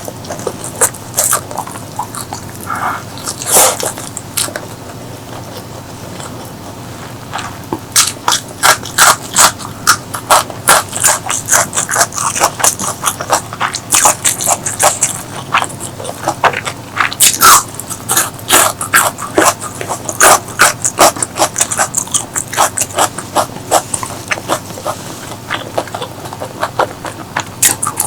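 Close-miked eating: mouth chewing and biting crunchy food, with sharp crisp crunches. The crunches are sparse at first, with a quieter pause, then come thick and fast from about eight seconds in.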